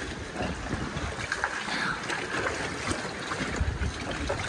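Water lapping and trickling around a kayak, with small paddle splashes and a low wind rumble on the microphone.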